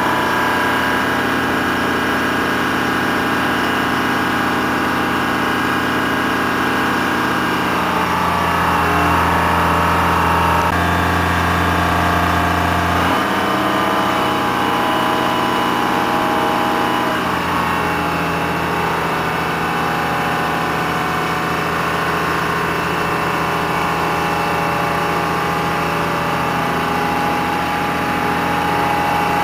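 Diesel engine of a rough-terrain mobile crane running steadily, its pitch rising about eight seconds in, dropping back around thirteen seconds, and shifting again around seventeen seconds as the crane works.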